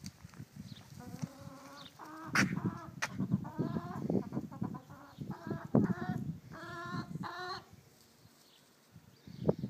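Hens clucking in a run of short, repeated calls, with low rustling and knocking underneath and two sharp clicks about two and a half and three seconds in.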